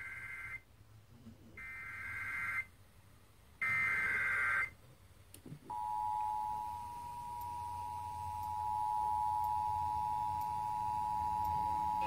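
Emergency Alert System Required Monthly Test from an FM radio station, played through a stereo receiver: three one-second bursts of SAME header data, a second apart, then about six seconds in the steady two-tone EAS attention signal starts and holds.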